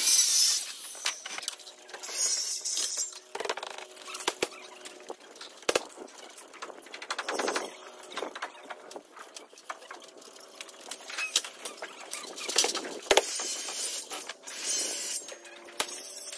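Sped-up construction-site noise from siding work: a burst of circular-saw cutting at the start, then scattered taps and clatter with a few more short bursts of tool noise.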